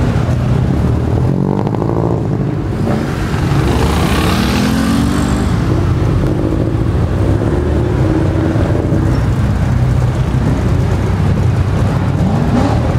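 Turbocharged four-cylinder sports sedans, a Subaru Impreza and a Mitsubishi Lancer Evolution, pulling away and accelerating. The engine note rises several times as they rev through the gears, with a brief hiss about four seconds in.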